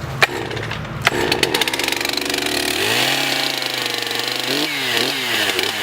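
Two-stroke chainsaw started with the choke set to high idle: it begins firing about a second in, settles into a fast idle whose pitch rises about three seconds in, then dips and picks up again a few times near the end.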